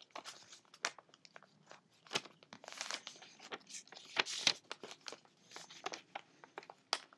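A sheet of paper being folded and creased by hand as the wings of a paper airplane are folded down: scattered small crinkles and taps, with longer rustling sweeps about three and four and a half seconds in.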